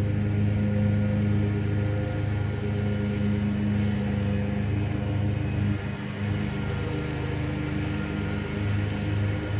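Bobcat commercial zero-turn mower's engine running steadily, a low, even hum that wavers slightly in the second half.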